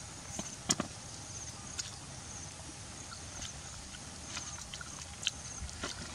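A few short, sharp clicks and crackles as crispy flour-fried fish is torn apart by hand over a metal tray, against a faint, repeated high chirping in the background.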